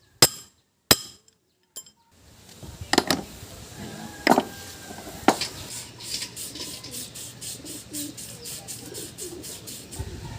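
Sharp metal taps and clinks from hand tools on diesel engine parts: a few light taps, then three harder knocks, followed by a quick even ticking at about four a second. Pigeons coo in the background.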